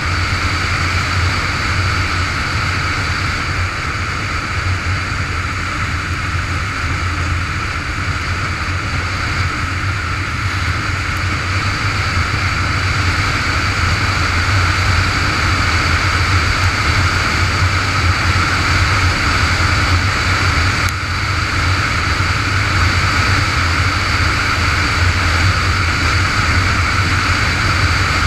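Motorcycle riding at road speed: a steady engine drone under wind rushing over the microphone, getting a little louder about halfway through.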